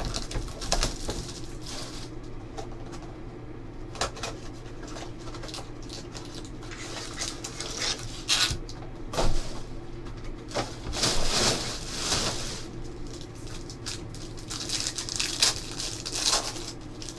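Hands handling a cardboard trading-card box and its sealed card packs, with scattered crinkling and rustling as a pack wrapper is torn open, and a few light knocks. A steady low electrical hum runs underneath.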